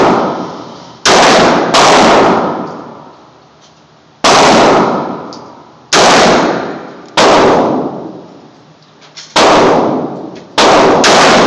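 Taurus 627SS .357 Magnum revolver fired with .38 Special rounds: about seven sharp shots at an uneven pace, one to two seconds apart, each followed by a long echoing decay.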